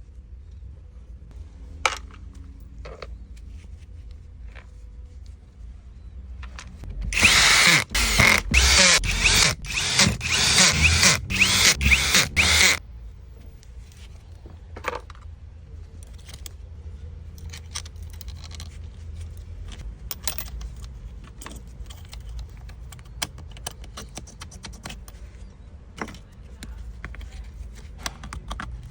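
Pumpkin INF-26RHBL rotary hammer run in short trigger bursts for about six seconds, stopping and starting about eight times in quick succession. Small handling clicks and knocks come before and after.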